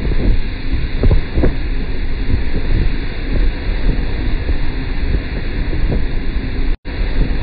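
Wind buffeting the microphone over a motorboat's low rumble and rushing water. The sound cuts out for an instant near the end.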